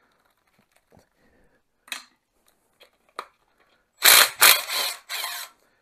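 Cordless power driver with a socket running on a 15 mm cylinder-head nut of a VW 1600 air-cooled engine, loosening it in four short bursts about four seconds in. A few faint metal clicks come before it.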